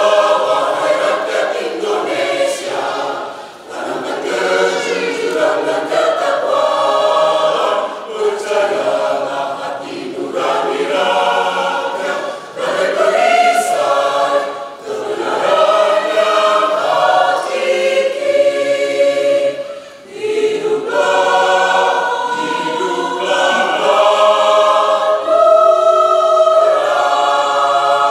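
Mixed choir of men's and women's voices singing in parts, phrase after phrase with short breaks for breath.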